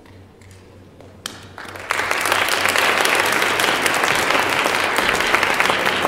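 Audience applauding: after a brief quiet, clapping starts just over a second in and grows to steady, full applause about two seconds in.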